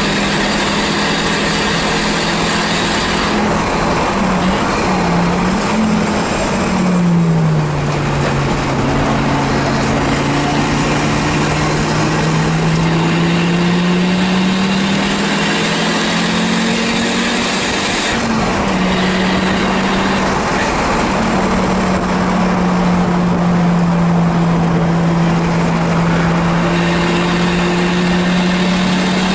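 1984 Audi 4000 race car's engine running hard under load, heard from inside its stripped cabin. The engine note wavers and falls about seven seconds in, climbs slowly for about ten seconds, drops sharply around eighteen seconds, and then holds steady.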